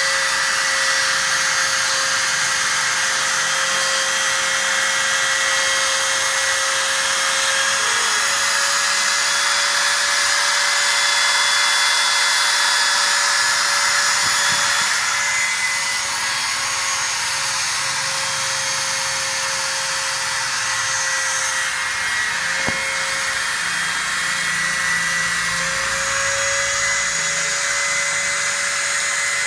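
Automatic letter-cutting machine for aluminium composite panel running steadily, its high-speed spindle giving a constant whine over a high hiss of cutting.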